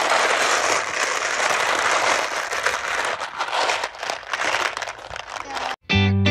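A hand raking and stirring through a plastic tub full of round plastic beads, making a dense, continuous clatter of many small clicks. It cuts off abruptly near the end, and guitar music starts.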